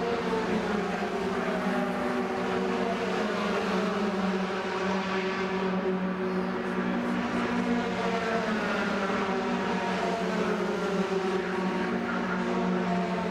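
Racing pickup trucks running at speed on an oval, several engines heard at once, their pitches sliding slowly up and down as the pack passes and goes round.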